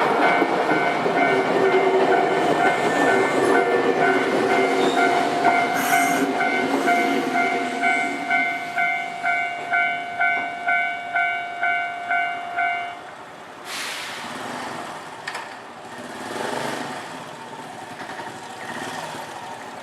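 Railway level-crossing warning bell ringing, a repeating electronic ding about twice a second, while a train runs over the crossing with a rumble and wheel clatter. The train noise fades over the first half and the bell stops abruptly about 13 seconds in, leaving quieter traffic noise.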